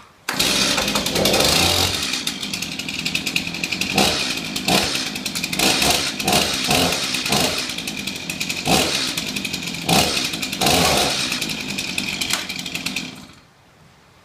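Stihl MS 251 two-stroke chainsaw starting up and running, with repeated brief revs of the throttle, then shut off about thirteen seconds in.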